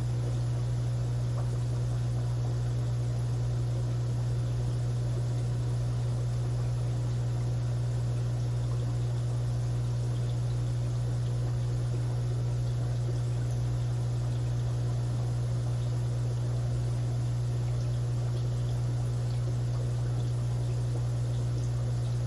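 Aquarium filter pump running: a steady low hum with a faint trickle of water.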